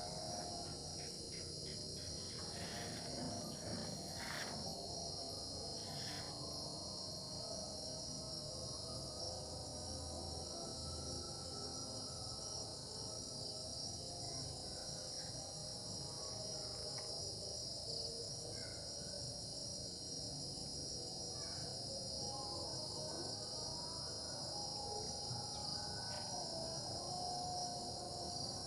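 A steady insect chorus of crickets trilling in a continuous high drone, with faint, fainter lower calls coming and going beneath it.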